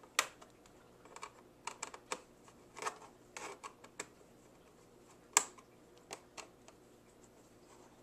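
Irregular small clicks and ticks of a Phillips screwdriver working the screws out of a laptop's plastic memory-compartment cover, with one sharper click about five seconds in.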